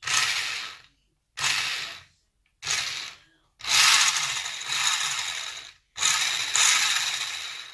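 A toy-grade RC car's electric drive motor (an added sprint motor) and plastic gearbox whirring in five short throttle bursts, the fourth the longest at about two seconds. Each burst starts sharply and fades. This is a bench test of drive direction after the motor wires were swapped, forward and reverse having been the wrong way round.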